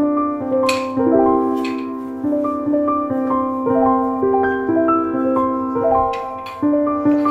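Background piano music: a slow melody of single notes, each struck and left to ring out.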